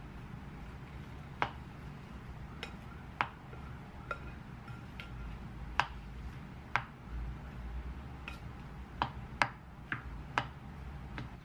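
A plastic spoon stirring food in a ceramic mixing bowl, knocking and clicking against the bowl about a dozen times at an irregular pace, some knocks with a brief ring.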